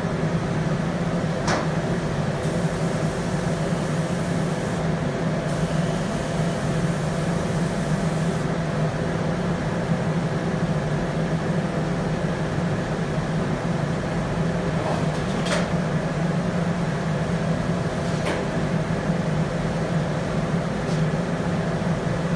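Steady mechanical hum with a low drone and a few steady tones above it, unchanging throughout, with a few faint clicks.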